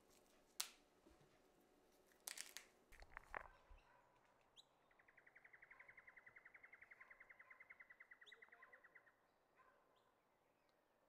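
A few sharp clicks and knocks in the first seconds, the loudest just after the start. Then a bird gives a rapid trill of identical notes, about ten a second, for some four seconds, over quiet rural background.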